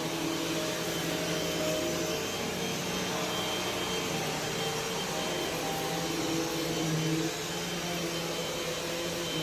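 Vacuum cleaner running steadily as it is pushed over carpet, pulling up dry dirt. It makes a constant rush of air with a motor hum and a thin high whine.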